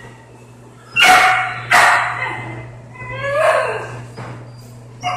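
Puppy barking: two sharp barks close together about a second in, then a longer yelp that rises and falls in pitch, over a steady low hum.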